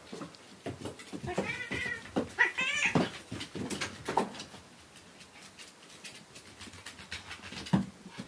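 A cat meowing twice, about one and a half and two and a half seconds in, amid thumps and scuffling as a kitten and a chihuahua play-fight on tatami mats; the loudest thump comes right at the start.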